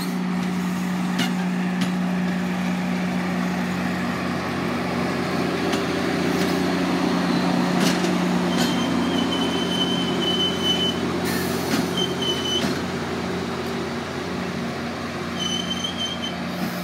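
MARC commuter train passing: bilevel coaches, then the diesel locomotive, with a steady engine drone, wheels rumbling and clicking over the rail joints. A steady high squeal comes in about halfway through for a few seconds, briefly again, and once more near the end.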